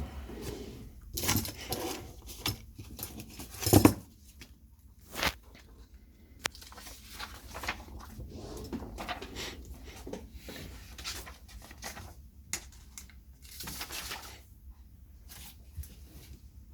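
Small objects being handled on a work surface: irregular clicks, knocks and rustles, with the loudest knock about four seconds in.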